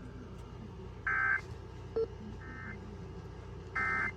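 Emergency Alert System end-of-message data bursts: three short, harsh digital screeches about a second apart, the middle one fainter, marking the close of the AMBER Alert. A short low blip comes about two seconds in.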